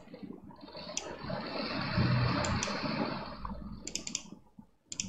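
Computer mouse clicks: a few single clicks, then a quick cluster of clicks near the end, as when double-clicking, over a background hiss.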